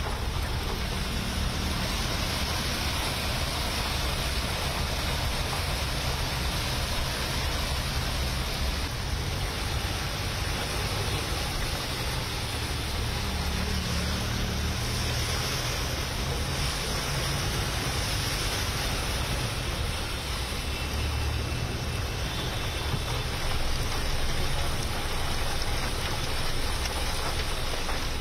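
Heavy rain falling steadily, with the low rumble of a car driving through floodwater on the road, its wheels pushing and splashing the water.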